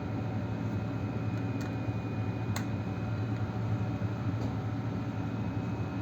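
A steady low mechanical hum with hiss, with two or three faint clicks about one and a half and two and a half seconds in.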